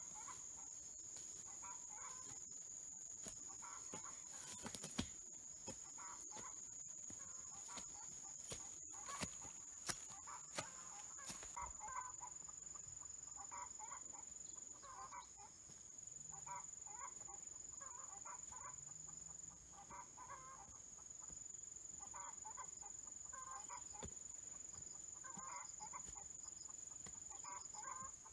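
Faint chicken clucking, short calls repeated every second or two, over a steady high-pitched whine, with a few sharp clicks in the first half.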